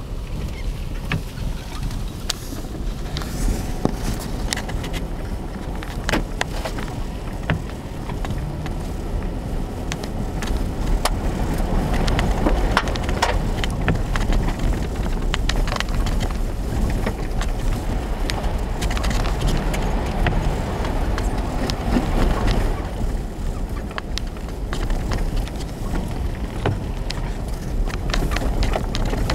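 Nissan Xterra driving through deep snow, heard from inside the cabin: a steady low rumble of engine and tyres, with frequent short cracks and ticks scattered through it.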